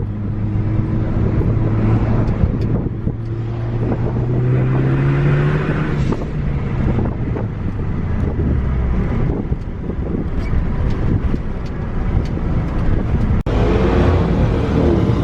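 Hybrid-turbo Ford Focus ST's engine running under way. Its note rises steadily over the first several seconds, then gives way to a rougher mix of engine and road noise. The sound breaks off abruptly near the end.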